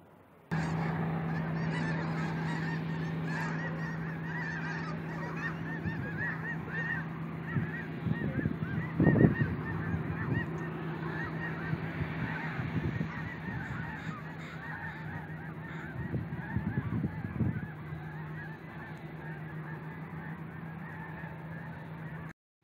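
A flock of geese honking and chattering continuously, many calls overlapping, with a steady low hum underneath.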